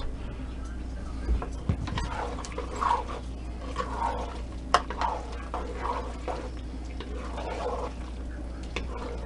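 Pasta in thick Alfredo sauce being stirred in a stainless steel pot with a spatula: irregular wet squelching and scraping, with a few sharp clicks of the utensil against the pot.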